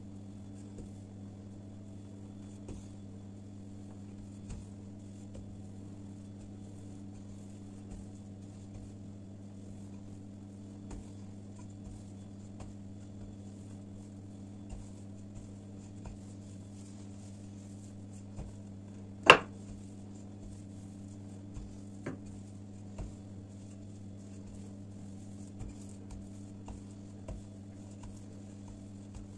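Wooden rolling pin rolling out dough on a tabletop: scattered soft knocks and taps, with one sharp knock about two-thirds of the way through, over a steady low hum.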